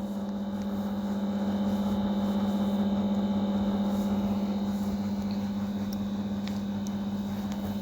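A steady low machine hum with an even pitch, with a few faint clicks over it.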